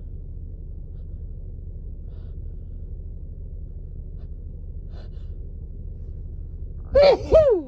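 A woman with a cold sneezing twice in quick succession near the end, each sneeze loud and high-pitched with a falling pitch. Before them there are only faint breaths over a low steady hum.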